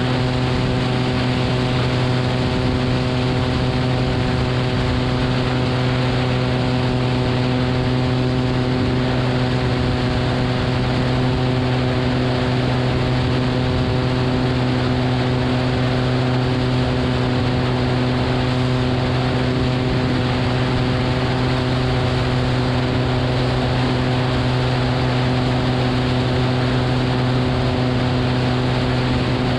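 Steady drone of a Cessna 180's six-cylinder engine and propeller in flight, holding one pitch throughout, with air rushing past.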